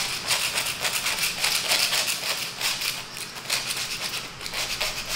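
A hand scraper rasping over a bare concrete floor in quick, repeated strokes, working off something stuck to it, like paper.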